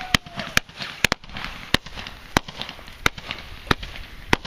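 Fireworks going off: a steady series of sharp bangs, about one every two-thirds of a second, over a crackling hiss.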